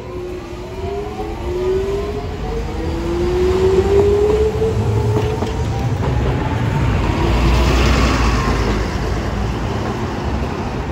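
Hiroden 3950-series 'Green Liner' tram pulling away, its traction motors whining in several tones that rise steadily in pitch as it speeds up. A city bus then passes close by with a broad engine and tyre rumble, the loudest part, about seven to eight seconds in, mixed with street traffic.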